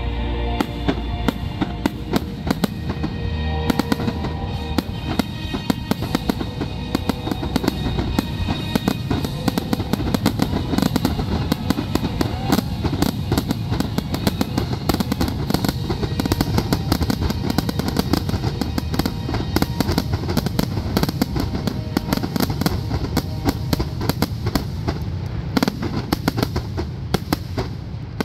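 Aerial fireworks shells bursting in a rapid, continuous barrage, many bangs overlapping one another with no pause.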